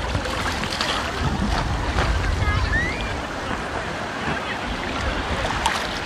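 Small sea waves washing and lapping in shallow water around an inflatable air mattress, with wind rumbling on the microphone that eases about halfway through.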